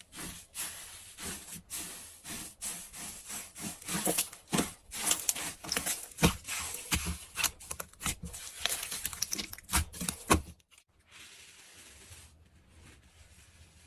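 Soft slime being squeezed and pressed by hand, giving a run of irregular sticky clicks, crackles and small pops that stops about ten seconds in, leaving a faint hiss.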